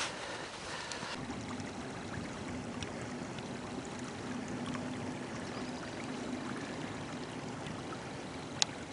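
Small brook running in a narrow grassy channel: a steady rush of water that sets in about a second in. A single sharp click near the end.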